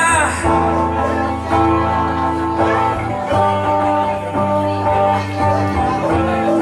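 Rock song in an instrumental passage: guitars playing chords over a bass line with a steady beat. A held sung note slides down and fades right at the start.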